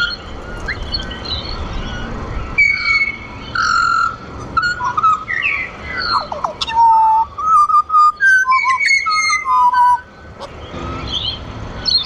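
Pied butcherbirds singing together: clear fluted whistles and gliding notes, with a run of quick high notes about halfway through.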